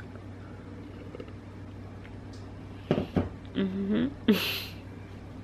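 Woman drinking from a cup over a steady low hum. About three seconds in come a couple of sharp knocks, then a short hummed "mm" and a breathy puff of air.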